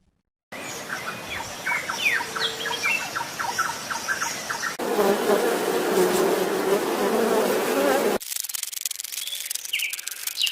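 Three short animal-sound clips spliced one after another: small birds chirping in quick, falling notes, then a dense buzzing hum of insects, then rapid insect ticking with a few chirps.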